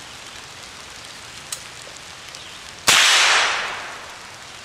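A single .22 rimfire rifle shot from an AR-15 fitted with a CMMG .22 bolt conversion kit, fired about three seconds in. It is a sharp crack that trails off over about a second.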